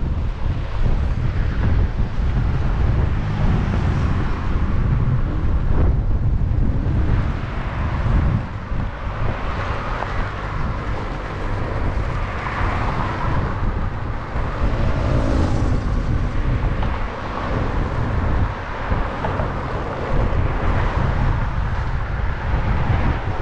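Wind rumbling on the microphone of a moving rider, over road traffic noise from passing cars and trucks. A truck goes by close alongside about halfway through.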